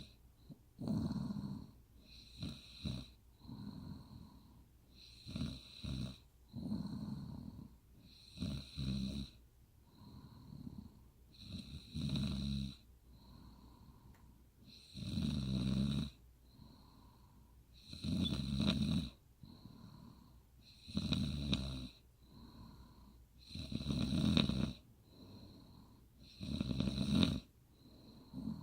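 A woman snoring in sleep, one snore about every three seconds, each about a second long, with a fainter breath between snores.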